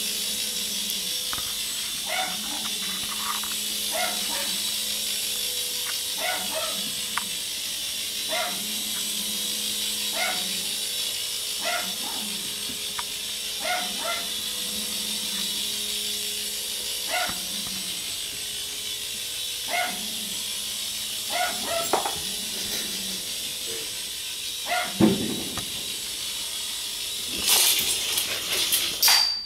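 A dog gives short, high whines or yips roughly every two seconds over the steady hum and hiss of a small toy helicopter flying. There is a loud thump about 25 seconds in, and clattering near the end.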